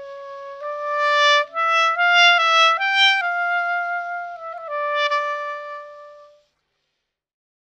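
Wooden Schenkelaars clarinet playing a melody of held notes, ending on a long final note that fades out about six seconds in.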